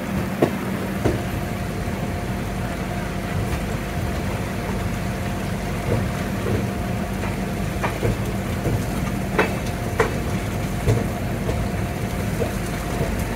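Moving express train heard from an open coach doorway: a steady rumble of wheels on track, with sharp clacks every second or so as the wheels cross rail joints and points. A steady low hum runs underneath and fades out about nine and a half seconds in.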